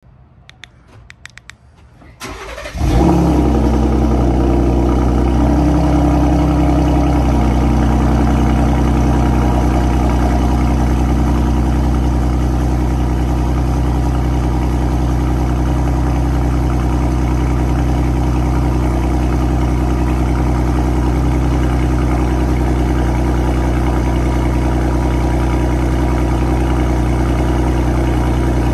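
Ford Raptor's 3.5-litre twin-turbo EcoBoost V6 cold-starting through a Corsa exhaust: faint clicking at first, then the engine catches with a loud flare about three seconds in and settles into a steady cold idle.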